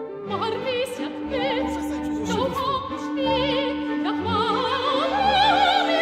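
Operatic singing with a wide vibrato over orchestral backing music.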